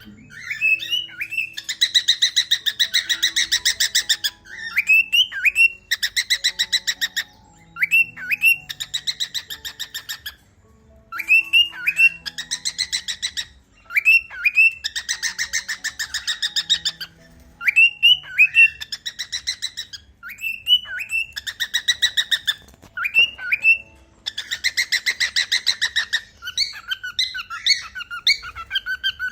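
Cockatiels calling: short upward-curling whistled notes alternating with loud, raspy, rapidly pulsed chattering calls, repeating every couple of seconds.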